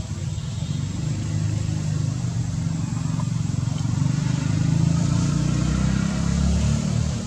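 Low engine rumble of a passing motor vehicle, growing louder to a peak around five seconds in and then easing slightly.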